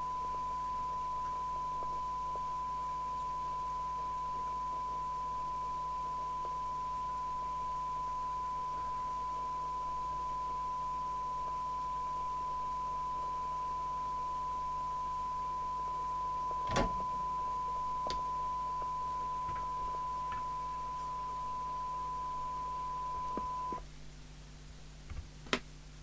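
A steady single-pitched test tone, a CB radio receiving a signal generator's tone-modulated carrier through its speaker, which cuts off suddenly near the end. A sharp click comes partway through, and a few knocks follow the cutoff as the case is handled.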